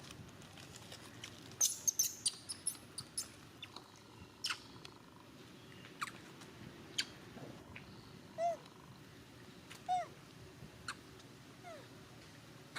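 Baby monkey giving short, arched, high-pitched coos three times in the second half. Sharp clicks and crackles come in a cluster a couple of seconds in, with single clicks scattered after.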